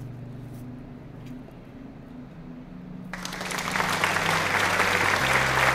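Soft background music of low held notes; about three seconds in, a loud, dense crackling noise comes in suddenly and keeps going over the music.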